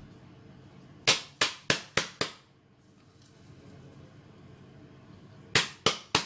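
Sharp hard knocks with a short ring: five in quick succession, then three more near the end. These come from a container being tapped against the rim of a glass bowl to knock out crushed chocolate-cookie crumbs.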